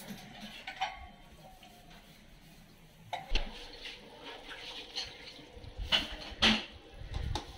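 Steel ladle stirring boiling water and vegetables in an aluminium kadai, sloshing and knocking against the pan. The knocks start about three seconds in and come roughly once a second.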